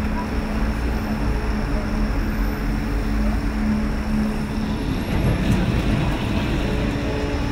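Steady street traffic noise with a low hum. From about five seconds in a tram runs past on its rails, and the sound grows rougher.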